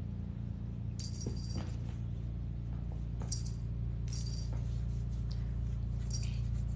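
Small bell on a cat wand toy jingling in short bursts several times as the toy is shaken, over a steady low hum.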